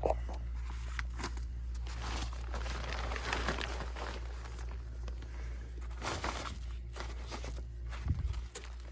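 Rustling, crinkling handling noise with scattered light clicks and a low knock near the end, over a steady low hum.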